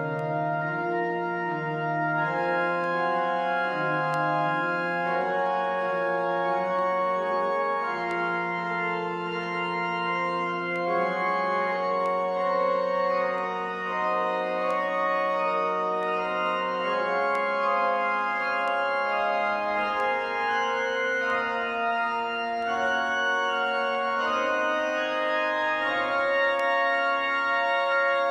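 Pipe organ playing a slow piece in long held chords that change gradually.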